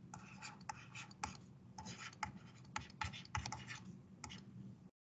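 Stylus strokes on a tablet as numbers are handwritten: short, irregular taps and scratches. The sound cuts off suddenly near the end.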